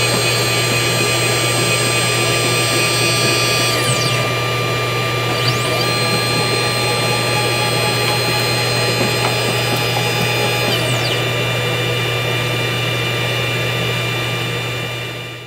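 CNC 3018 PRO laser engraver's stepper motors whining as the gantry and laser head travel. There are two moves, each a rising whine, a steady tone for a few seconds, then a falling whine, over a constant low hum. The sound cuts off abruptly at the end.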